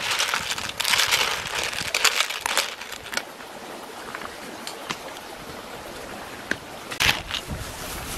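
Metal spoon stirring cockles in a simmering tamarind sauce in a clay pot, the shells clattering and scraping for the first three seconds or so. Then the sauce bubbles steadily, with a few sharp clicks about seven seconds in.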